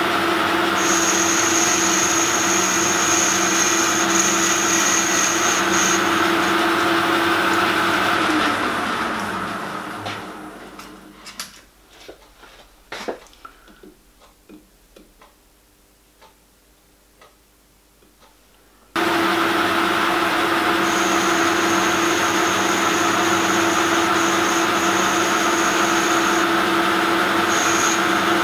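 Metal lathe running steadily while a tool cuts an o-ring groove in the dome cover, with a high whine from the cut. About eight seconds in the lathe spins down, falling in pitch, and there are a few light clicks and taps as calipers are set against the part. From about nineteen seconds the lathe is running and cutting again.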